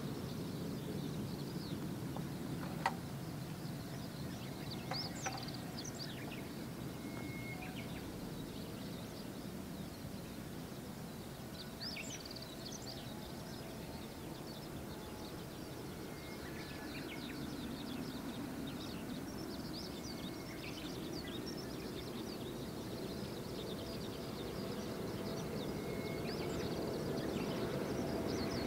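Small birds chirping over a low, steady rumble from a distant Boeing 747-8F's four GEnx engines on landing approach. The rumble, with a faint steady whine, slowly grows louder toward the end as the jet nears.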